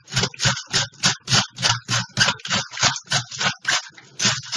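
Head of white cabbage shredded on a wooden cabbage shredder board: each push across the blade makes a short rasping stroke as thin strips are sliced off, in a steady rhythm of about three strokes a second.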